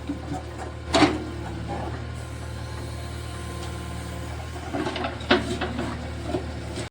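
Backhoe loader's diesel engine running steadily at low revs, with a sharp knock about a second in and another a little after five seconds.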